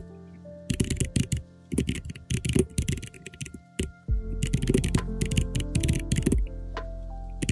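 Runs of computer keyboard and mouse clicks over steady background music. The music's bass comes in a little after halfway.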